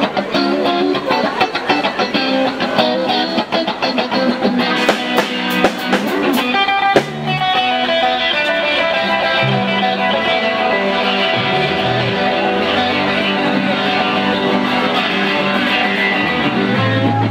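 Band music led by guitar, with a bass guitar line. The first part is choppy, strummed playing; a sharp click about seven seconds in is followed by smoother playing with long, low bass notes.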